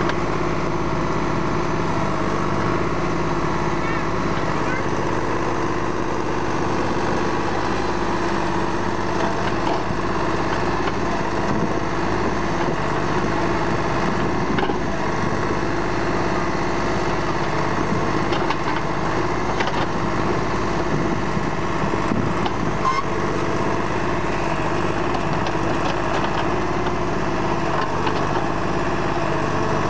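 Deutz-Fahr tractor's diesel engine running at a steady speed while it powers a rear-mounted backhoe digging soil.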